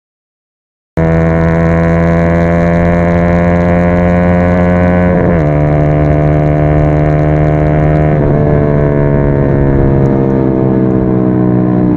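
After a second of silence, the Yamaha XSR 155's single-cylinder engine runs hard at high revs as a steady, loud drone, its pitch sagging slowly, with a sudden dip about five seconds in.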